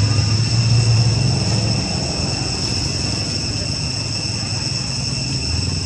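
Low rumble of road traffic going by, easing off in the middle and building again near the end, over a steady high-pitched whine.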